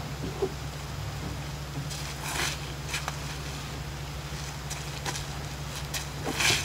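Canoe tie-down straps being pulled tight: two short rasping swishes of webbing and hands against the canoe, about two seconds in and louder near the end, with a few light clicks, over a steady low hum.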